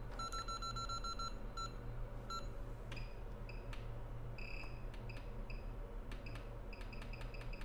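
Electronic beeps from rework bench equipment as its settings are keyed in. A quick run of short mid-pitched beeps comes first, then two single ones, and from about three seconds in, higher beeps in irregular groups. A low steady mains hum runs underneath.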